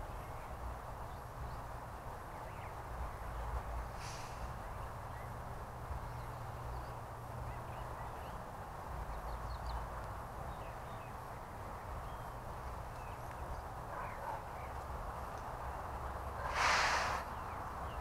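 Backyard ambience: faint, scattered small-bird chirps over a steady low hum. Near the end comes one harsh, loud blue jay call, lasting under a second.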